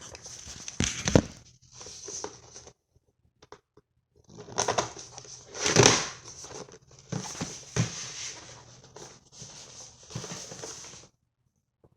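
A cardboard shipping box being cut open and a replacement hard drive unpacked: irregular scraping, tearing and crinkling of packaging, with a pause about three seconds in.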